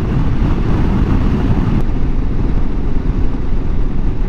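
Dual-sport motorcycle engine running at a steady road speed, a continuous drone mixed with wind and road noise.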